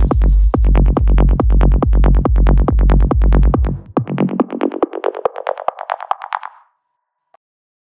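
Closing bars of a trance track: a heavy kick drum and bass on a steady fast beat drop out about four seconds in. A rapidly pulsing synth carries on alone, rising in pitch and fading out, with a faint click near the end.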